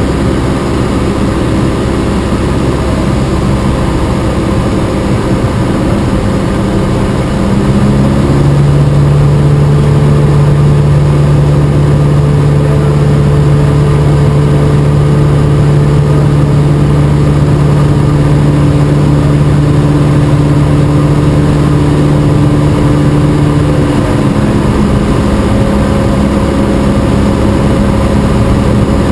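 Cessna 172 Skyhawk's piston engine and propeller droning steadily, heard from inside the cockpit. The engine note drops and grows louder about eight seconds in, then shifts back up a few seconds before the end.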